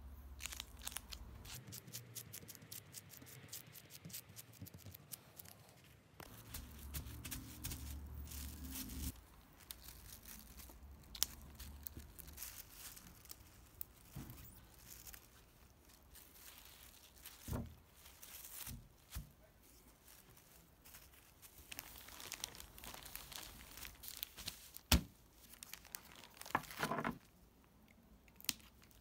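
Plastic film and prepreg backing being peeled, smoothed and handled: irregular crinkling and tearing noises with scattered sharp clicks, the loudest about 25 seconds in. Near the end, the crinkle of a plastic vacuum bag being handled.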